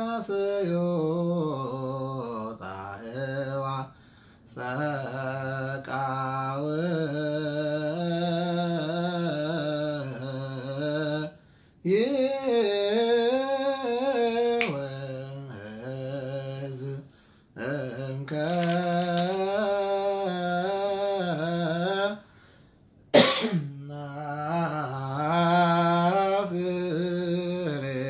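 A man chanting solo in Ge'ez, an Ethiopian Orthodox Abun hymn: long phrases with the voice wavering up and down, broken by short breath pauses every several seconds. About 23 seconds in, a brief loud vocal burst stands out above the chant.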